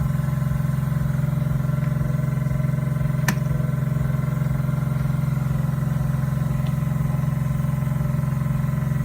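A machine running steadily at one constant pitch, a loud low hum, with a single sharp click about three seconds in.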